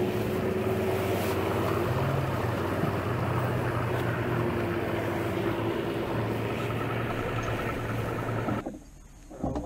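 Bass boat's outboard motor running steadily at speed, with wind and water rushing over it; the sound drops away sharply near the end.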